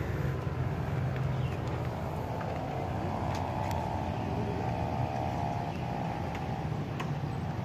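Road traffic: a steady engine rumble, with one vehicle's engine note standing out for a few seconds in the middle.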